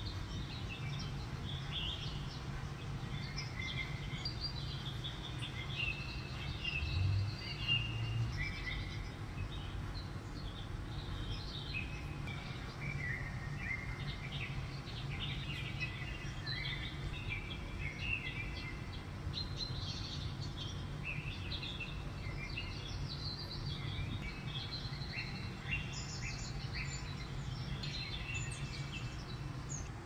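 Small songbirds chirping and trilling continuously, played from a bird-feeder video through a television's speaker, over a steady low hum. A brief soft low bump comes about seven seconds in.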